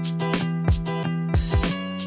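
Background music: guitar chords over a steady beat.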